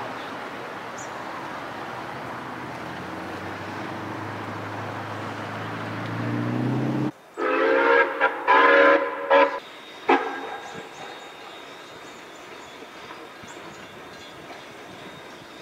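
A steady engine drone that slowly rises in pitch, cut off abruptly about seven seconds in. Then a steam locomotive whistle sounds a series of blasts, short and long, over about three seconds.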